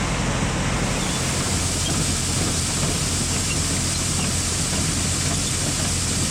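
Farm machinery running steadily: a low, even engine drone under a constant rushing noise, with no change in speed.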